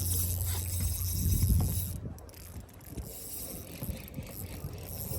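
Spinning reel being cranked while a hooked striped bass fights on light tackle: the reel mechanism makes a run of rapid clicks and ticks. A low steady hum is loudest in the first second and a half.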